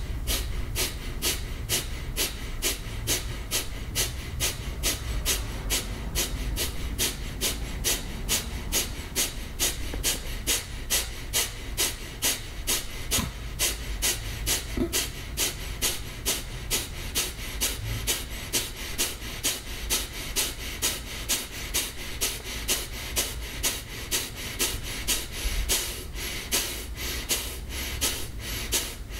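Kapalabhati breathing: a man's rapid, forceful exhalations through the nose, about two a second, in a steady rhythm, with the inhales between them passive and quiet.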